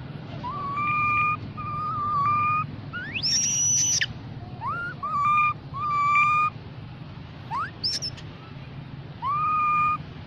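Young macaque giving a series of clear, whistle-like coo calls, about eight in ten seconds, most held on one pitch after a quick rise, with one much higher, shriller call about three seconds in. These are the calls a separated youngster uses to call its group.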